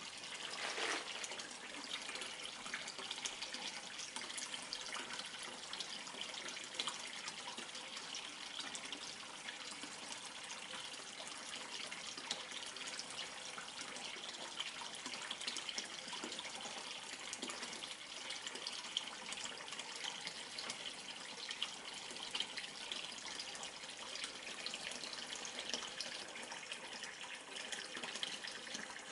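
A thin stream of water pouring from above into an indoor turtle pond, splashing and bubbling steadily at the surface, with a short falling gurgle about a second in.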